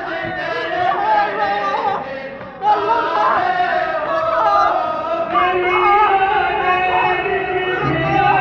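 Group of men chanting zikr together, several voices overlapping in a sung, repetitive chant; it briefly drops about two and a half seconds in, then comes back louder.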